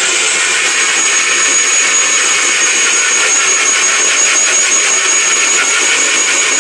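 Ajnur 1200-watt mixer grinder running at full speed, grinding bhorta paste in its stainless-steel jar: a steady loud motor whir, with a high whine that sets in about a second in.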